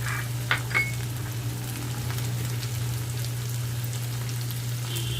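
Onion-tomato masala paste sizzling in hot oil in a pan, with a few sharp clicks of a spoon against the pan about half a second in.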